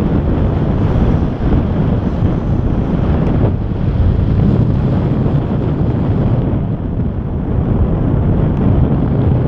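Wind buffeting a paraglider pilot's action-camera microphone in flight: a loud, steady low rumble of airflow noise.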